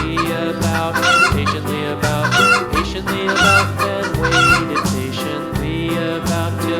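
Chicken calls, a clucking and crowing sound, repeated about once a second, five times, over upbeat background music.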